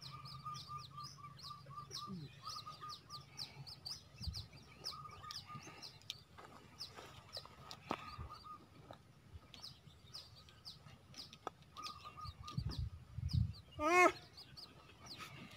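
Birds chirping: many quick, high down-slurred notes throughout, with runs of a rapidly repeated piping note at several points. A short, loud call with a rising-then-falling pitch stands out near the end.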